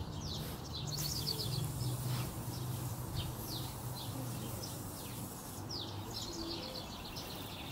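Birds chirping in short, quick falling notes, repeated many times, over a steady low hum. A high hiss joins about a second in and stops shortly before the end.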